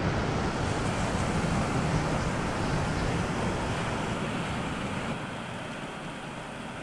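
Computer playback from Finale notation software: a dense, hissing wash of overlapping sampled notes packed too tightly to be heard one by one, slowly fading.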